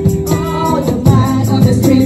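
A group of women singing a Christmas carol together into microphones, accompanied by electric guitar, with percussion strikes keeping a steady beat.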